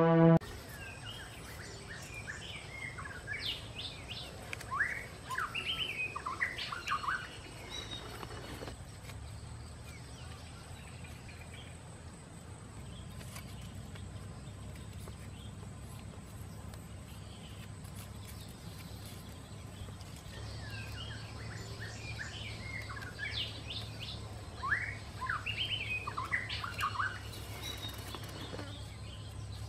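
Birds chirping and singing in two spells of several seconds each, one early and one near the end, over a steady low hum.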